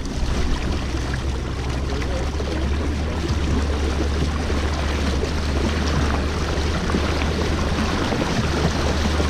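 Water rushing and splashing along a boat's side as a golden dorado is held in the river current to revive it, over a steady low rumble.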